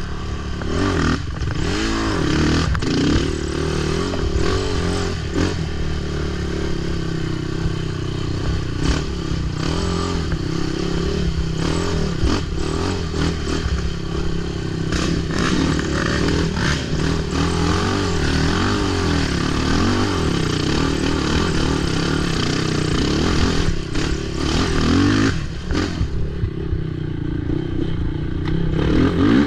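ATV engine running hard, its revs rising and falling with the throttle, with repeated clatter and knocks from the machine over rough ground.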